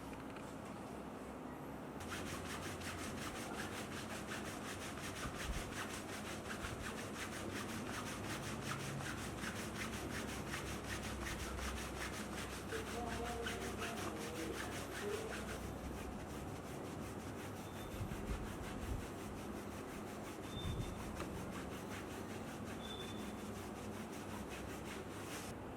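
Brisk, rhythmic rubbing, many even strokes a second, of a therapist's hands working over a patient's neck and back during massage-style treatment. It starts about two seconds in and turns softer past the middle.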